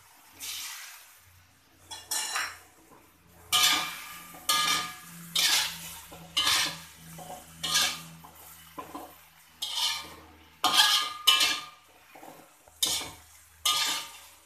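Slotted metal spatula scraping and clanking against a metal wok while stir-frying tofu and vegetables, about a dozen irregular strokes roughly once a second.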